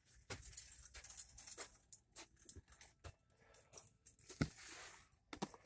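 Faint handling noise: irregular rustling and crinkling with scattered light clicks and knocks, as items and packaging are picked up and moved close to the microphone. The loudest knock comes about three-quarters of the way through.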